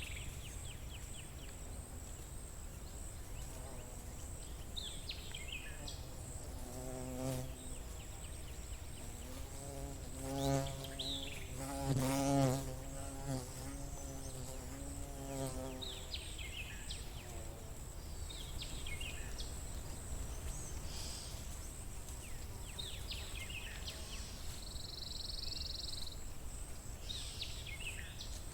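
A flying insect buzzing as it passes close by, its drone swelling and fading over several seconds with the loudest pass about halfway through. Birds chirp and twitter now and then, over a steady thin high-pitched whine.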